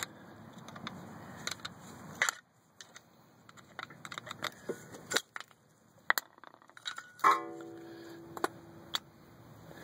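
Clicks and knocks of metal as worn rear brake pads are pried off a BMW X3's caliper bracket. About seven seconds in, a metal part is struck and rings for about two seconds. A background rush stops about two seconds in.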